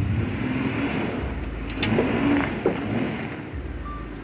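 Jeep Wrangler engine easing off right at the start and then running low as the Jeep crawls over rough ground, with a few sharp knocks near the middle.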